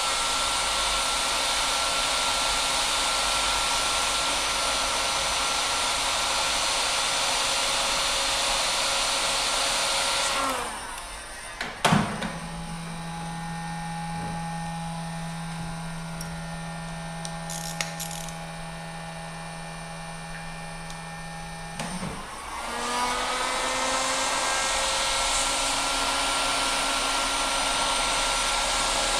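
Electric heat gun blowing steadily, heating a screw to soften its red Loctite threadlocker, then switched off about ten seconds in and winding down. A sharp click and a steady low hum follow for about ten seconds, then the heat gun is switched on again and spins back up.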